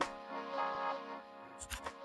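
Background music with a beat, fading down toward the end.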